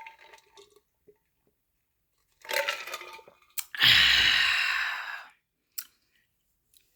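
A person sneezes loudly about four seconds in, after a short catching breath, the rush of air fading over about a second and a half; the food is spicy.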